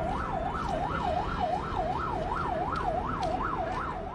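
Emergency vehicle siren in a fast yelp, its pitch rising and falling about three times a second, over a low background rumble.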